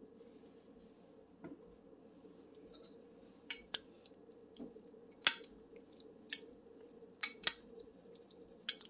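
A metal utensil clinking against a glass mixing bowl while oil-dressed chopped herbs and aromatics are stirred. There are about seven sharp clinks, starting about three and a half seconds in, over a faint steady hum.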